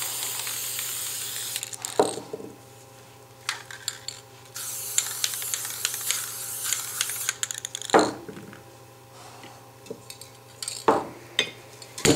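Aerosol spray-paint cans spraying in two steady hissing bursts, one at the start and one from about four and a half to seven seconds in. Between them are sharp knocks and clicks of metal cans being handled, the loudest about two and eight seconds in.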